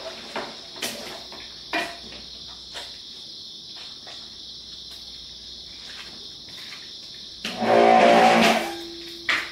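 A few knocks and clicks as the pressure-washer wand and hose are handled, then near the end a pressure washer runs for about a second, its motor humming under the hiss of the water spray, and stops, followed by a knock. A steady high-pitched chirring runs underneath throughout.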